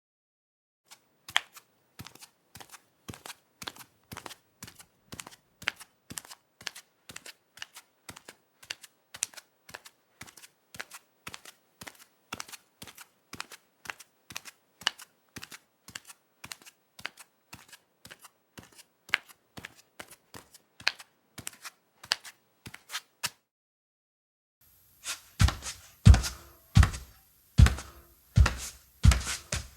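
Bare feet walking on a hard floor: a long run of light, quick slapping steps, about two a second. After a short pause, heavier barefoot steps on another surface, louder and with a deep thud to each.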